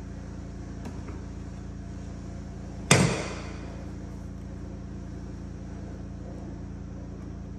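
One loud, sharp knock of a hard object about three seconds in, ringing out briefly, over a steady low hum, with a few faint clicks before it.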